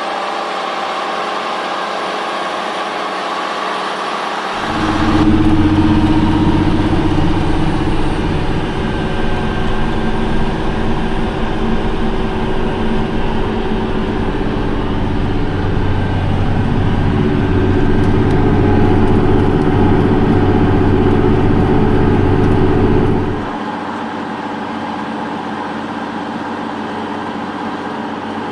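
Heavy farm machinery running: for most of the stretch, from about 5 seconds in until a sudden cut a few seconds before the end, a large diesel engine gives a loud, steady, deep note. Before and after it there is a thinner mechanical noise without the deep low end.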